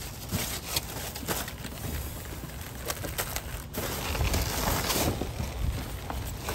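Clear plastic trash bags and snack bags rustling and crinkling as gloved hands rummage through bagged trash, with the rustling loudest about four to five seconds in.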